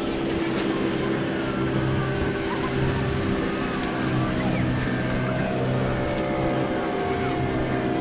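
An engine running at a steady speed, an even low drone.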